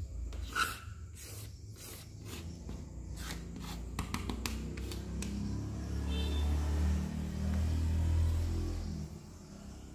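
Short scraping strokes of a small plastic piece dragged across a tabletop, gathering PVC sawdust into a pile, followed from about halfway by a low steady rumble.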